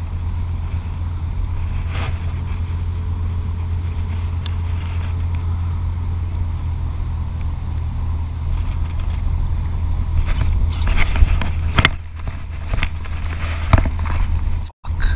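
Steady low wind rumble buffeting an action-camera microphone at open waterside. Scattered knocks and clicks from handling and walking come in over the last few seconds.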